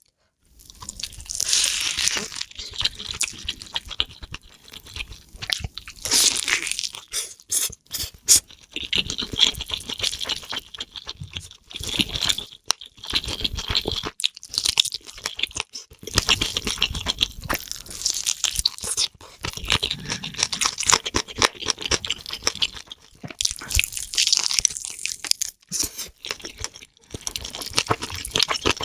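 Close-miked eating: food being chewed and crunched, with dense wet clicks and crackles coming in runs of a few seconds and short pauses between mouthfuls.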